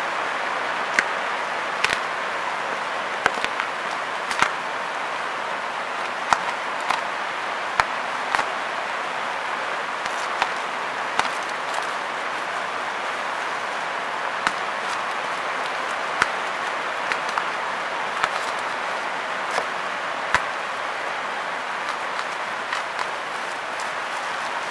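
Bubble-wrap packaging handled and unwrapped, giving irregular sharp clicks and crackles, roughly one a second, over a steady hiss of rain.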